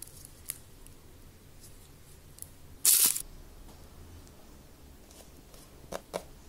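Small plastic clicks and knocks from handling a toy transforming motorbike-robot model. A short, loud scraping rasp comes about three seconds in, and two sharper clicks come near the end.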